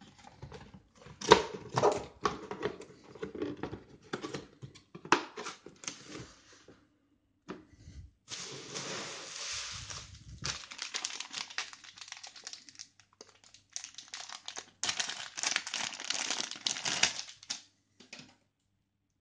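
Packaging handled by hand during an unboxing: a run of sharp knocks and clicks in the first six seconds or so, then, after a short pause, long stretches of crinkling that stop shortly before the end.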